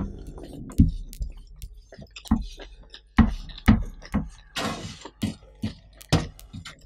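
Close-up eating sounds: chewing with the mouth closed, with fingers picking scraps of rice off a metal tray. There is a string of irregular sharp clicks and smacks, with a brief scraping rustle a little past the middle.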